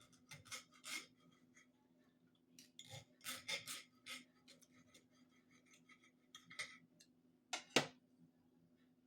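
Close-up eating sounds: scattered chewing and mouth clicks mixed with utensils tapping and scraping on dishes, faint, with one sharper click a little before the end.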